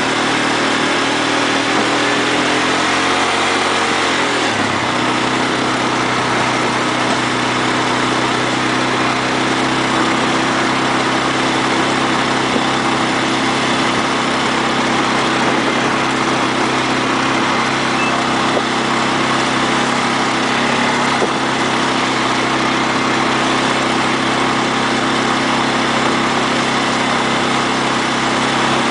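ATV engine running; its pitch rises a little, drops sharply about four seconds in, then holds steady.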